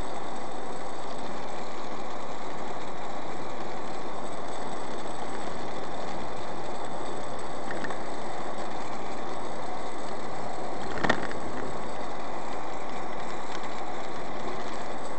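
Steady road and engine noise of a car cruising on a highway, heard from inside the cabin through a dashcam microphone, with one short sharp click about eleven seconds in.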